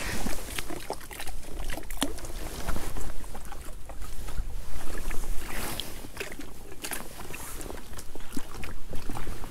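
Wind rumbling on the microphone, with scattered short clicks and knocks.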